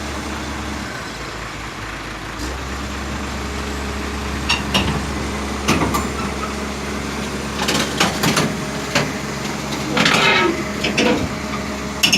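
Komatsu hydraulic excavator's diesel engine running steadily, with a series of sharp clanks and knocks starting about four seconds in and bunching up near the end.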